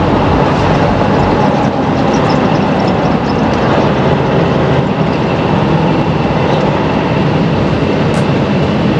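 Truck engine and road noise heard inside the cab while driving along, a steady drone.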